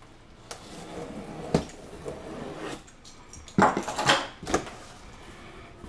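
A cardboard shipping box being handled and opened: a few sharp knocks, then a loud burst of scraping and tearing noise about three and a half seconds in that lasts about a second.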